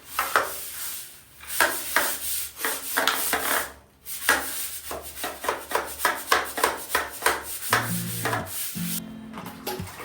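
A hard surface scrubbed by hand in quick back-and-forth strokes, about two or three a second, with a brief pause about four seconds in.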